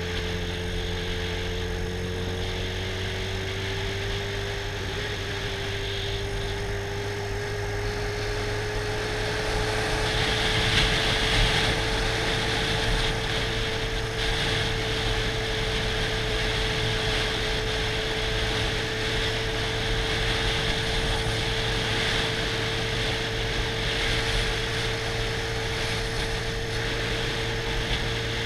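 Sport motorcycle engine running at a steady cruising speed, its pitch rising slightly over the first few seconds and then holding, with wind rushing over the microphone that grows louder about ten seconds in.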